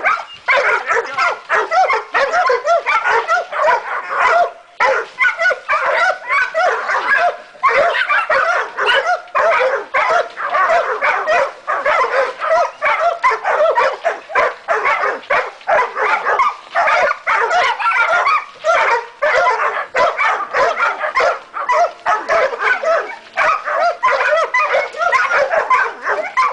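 Dog baying a hog: a rapid, nearly continuous string of barks, several a second, with a couple of brief pauses.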